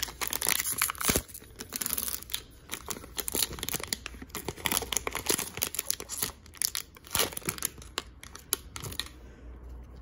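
Foil wrapper of an Upper Deck hockey card booster pack crinkling and tearing as it is ripped open by hand, a dense run of crackles that stops about nine seconds in.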